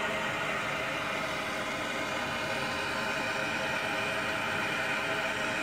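Handheld gas blowtorch burning with a steady hiss as its flame is held on the metal housing of a car subframe bushing.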